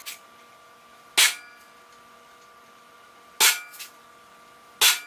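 Hammer striking a center punch on a steel plate: three sharp metallic strikes one to two seconds apart, after a light tap at the start, punching the centres of holes to be drilled.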